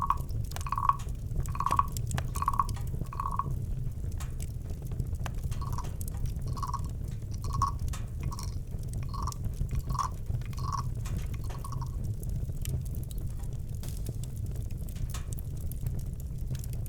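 Campfire crackling with small scattered pops over a low steady rumble. Over it, an owl gives a long series of short, evenly pitched toots, about one a second, that stops about twelve seconds in.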